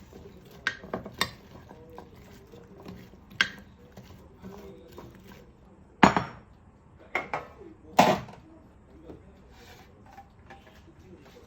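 Dishes and cutlery clinking and clattering: a handful of separate sharp knocks of tableware, the loudest about six and eight seconds in.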